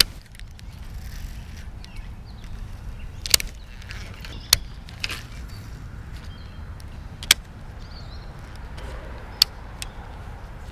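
Steady low rumble of wind on the microphone, with about half a dozen sharp clicks scattered through it from handling the fishing rod and reel.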